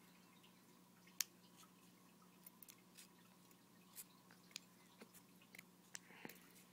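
Scissors snipping through thin aluminium soda-can metal: faint, scattered sharp clicks and crunches, the sharpest about a second in, over a steady low hum.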